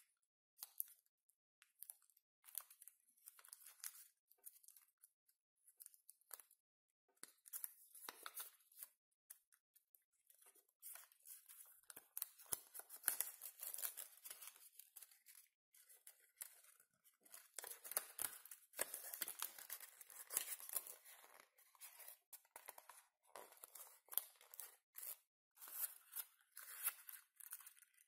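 Origami paper rustling and crinkling in short, irregular bursts as it is folded and pressed into a paper fortune teller, busiest in the middle.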